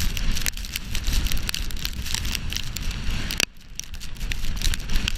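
Blizzard wind blowing hard over the microphone: a heavy low rumble full of dense crackling ticks. It dips briefly about three and a half seconds in.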